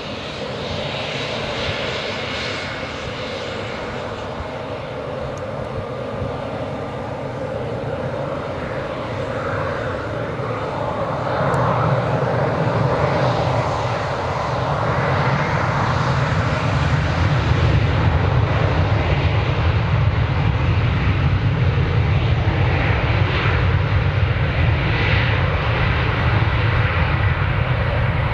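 Embraer 195's twin GE CF34-10E turbofan engines running on the runway, growing louder and deeper about a third of the way in as takeoff thrust is set, then holding a steady, loud low rumble as the jet rolls away on its takeoff run.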